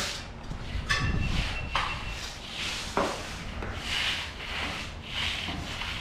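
A hand finishing tool scraping across the surface of freshly poured concrete in a series of strokes, about one a second, with a few sharp knocks between about one and three seconds in.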